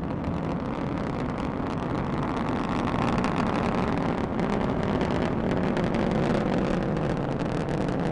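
Falcon 9 rocket's nine first-stage Merlin engines firing in ascent: a steady rocket rumble with a rough crackling edge, growing slightly louder about three seconds in.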